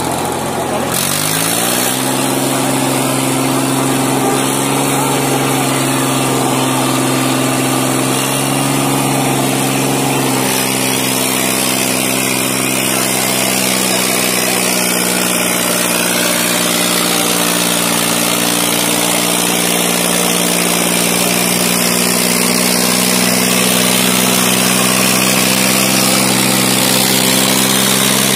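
Farmtrac 60 tractor's diesel engine running under load as it pulls two harrows through soil. Its note rises over the first two seconds, then holds steady.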